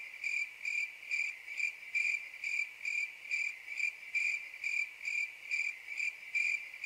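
Cricket chirping steadily at about two even chirps a second, a stock sound effect for an awkward silence.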